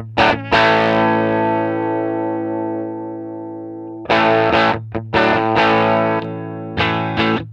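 Electric guitar played with overdrive through a Fender Pro Junior III valve amp: a strummed chord left to ring and fade for about three seconds, then a run of short, choppy chords.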